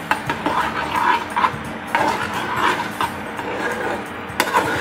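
A metal spoon stirring grated cheese and milk in an aluminium saucepan, scraping against the pan in uneven strokes, with sharp clinks of spoon on metal at the start and about four and a half seconds in.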